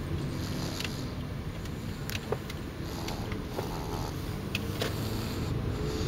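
A sleeping baby snoring: a steady, rough low rumble, with a few faint clicks.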